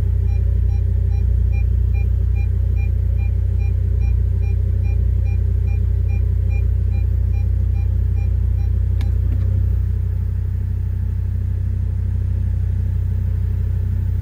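Steady low hum and rumble in a car cabin with the engine running, mixed with interference noise that an aftermarket head unit puts through the car speakers even with a ground loop isolator fitted. Over it a rapid, evenly spaced beep repeats, typical of a reverse-gear warning, and stops after a click about nine seconds in.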